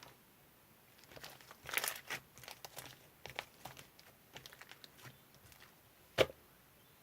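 Crinkling and rustling in a run of short, uneven bursts, starting about a second in, then a single sharp knock near the end.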